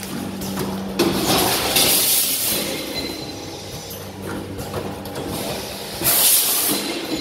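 Vertical form-fill-seal packing machine running: a steady mechanical hum with a sharp knock, and loud bursts of hissing air about four seconds apart.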